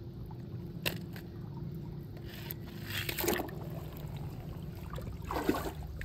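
A small toy monster truck dropped into a swimming pool: a short splash about three seconds in, with a second similar burst of water noise about five and a half seconds in and a light click about a second in.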